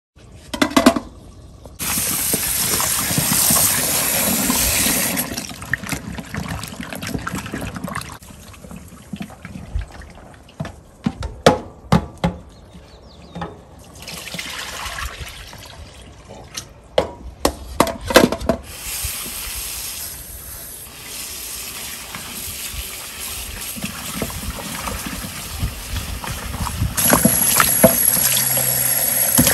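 Tap water running into a plastic bowl in a stainless steel sink as cut yam pieces are washed and rubbed by hand. Scattered knocks of the bowl and yam pieces against the sink come in the middle, and the water is loudest near the end.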